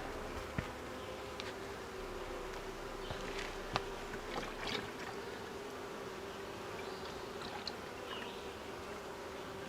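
Honeybees buzzing steadily around an open hive. Scattered light clicks and taps are heard, the sharpest about four seconds in.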